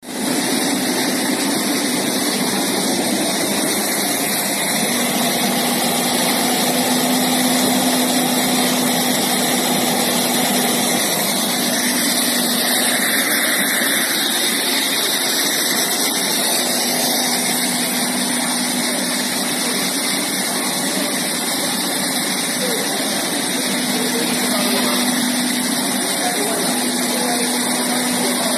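Industrial air compressor running steadily: a loud, even hiss of machine noise with a faint low hum that comes and goes.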